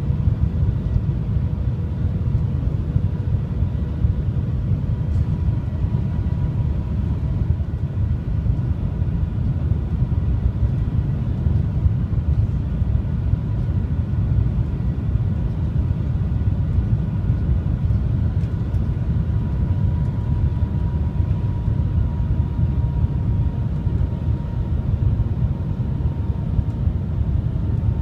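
Steady low rumble and rush of the Shanghai Transrapid maglev train in motion, heard inside the passenger cabin, with a faint steady whine that drifts slightly lower in pitch near the end.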